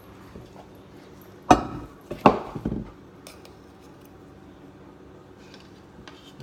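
Spoons knocking and clinking against a glass baking dish while dough is scooped: one loud knock, then a quick cluster of clinks about a second later.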